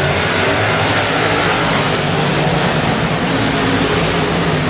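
A field of dirt-track semi late model race cars running at speed, several engines sounding at once in a loud, steady blend.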